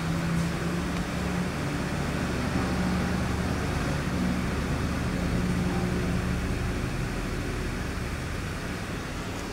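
Car engine idling steadily, a low hum that wavers slightly in strength.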